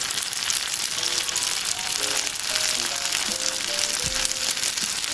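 Perilla-leaf and tofu rolls sizzling in hot oil in a pan: a dense, steady crackling hiss. Soft background music plays over it from about a second in.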